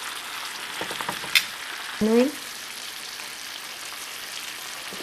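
Chicken breasts and mushrooms in Marsala wine gravy sizzling steadily in a skillet. A sharp click of a utensil against the pan comes a little over a second in, and a short rising tone about two seconds in.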